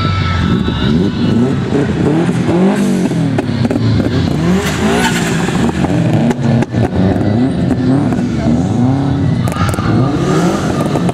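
Subaru Impreza flat-four engines revving as the cars pull away one after another, the pitch rising and dropping over and over with each blip of the throttle and gear change. A few sharp cracks come through in the middle and again near the end.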